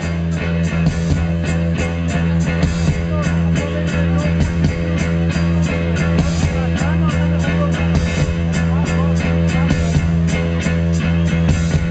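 Live rock band playing an instrumental passage of a blues-rock song: a steady droning bass note under guitar, with an even drum pulse.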